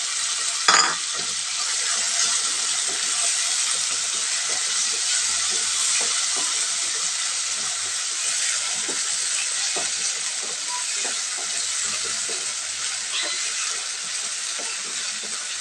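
Onion, ginger-garlic paste and fresh chopped tomatoes sizzling in hot oil in a kadhai, a steady frying hiss with small crackles, stirred with a wooden spatula. A single sharp knock about a second in.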